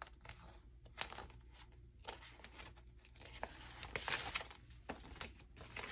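Soft crinkling and rustling of clear plastic zipper pouches being handled in a ring binder, with scattered light clicks; the rustling is busiest about four seconds in.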